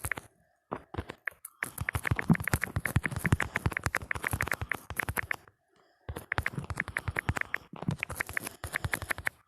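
Phone keyboard typing sounds: quick key-press clicks, several a second, in runs broken by short pauses, the longest pause a little past the middle.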